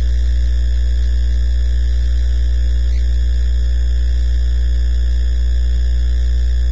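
Loud, steady electrical mains hum: a low drone with a ladder of higher overtones, unchanging throughout, with a faint tick about three seconds in.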